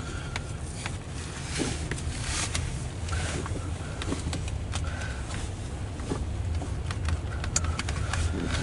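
Low steady rumble of a loaded coal train's hopper cars rolling past, heard from inside a car, with scattered sharp ticks over it.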